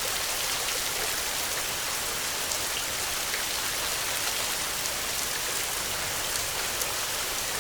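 Steady rain falling: an even hiss of water with scattered small drop ticks.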